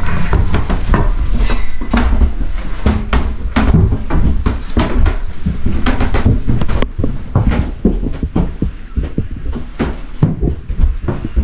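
Footsteps climbing bare wooden stairs: a run of irregular knocks and scuffs, a little quieter after about seven seconds.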